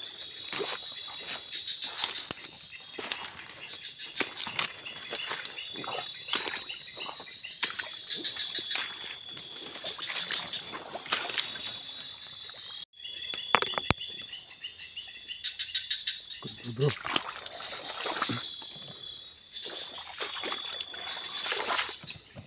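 Night insect chorus of steady high-pitched trills at several pitches, over footsteps sloshing through swamp water and brushing through undergrowth. The sound cuts out for an instant about two-thirds of the way through.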